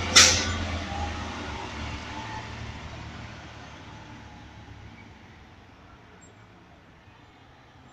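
Garbage truck engine running as it pulls away, with a short, sharp hiss of air from its air brakes about a quarter second in; the engine sound then fades steadily as the truck drives off.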